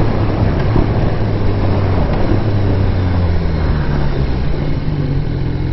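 2014 BMW S1000R's inline-four engine running steadily while riding, its note dipping slightly about halfway through and picking up again, over a steady rush of wind and road noise.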